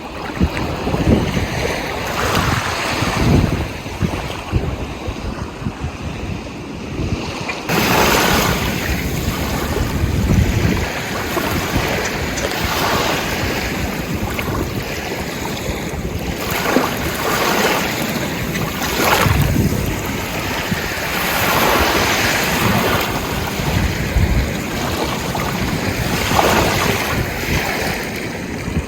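Ocean waves surging and washing in, one after another, with wind rumbling on the microphone. About eight seconds in the sound turns brighter and hissier.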